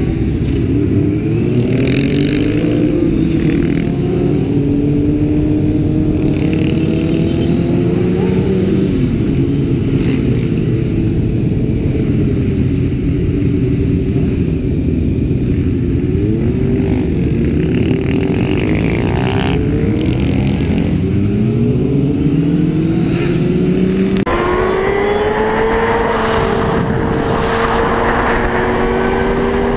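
Motorcycle engine heard from on the bike, revving up and down repeatedly as the rider accelerates and shifts gears. About 24 seconds in the sound changes abruptly, and the engine rises in pitch, then holds a steady pitch while cruising.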